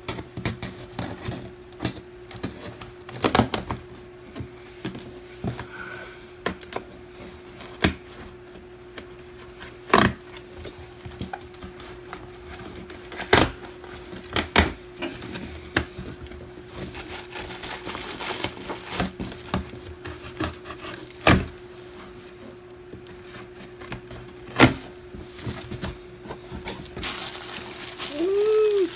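A folding knife slitting packing tape on a cardboard shipping box: scratchy cutting and scraping broken by a dozen or so sharp knocks and taps of the blade and hands on the box. Near the end the cardboard flaps are pulled open and plastic wrapping rustles. A faint steady hum runs underneath.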